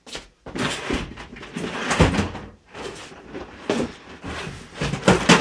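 Someone rummaging through a wardrobe and the clothes in it: a run of irregular knocks, bangs and rustles, loudest about two seconds in and again near the end.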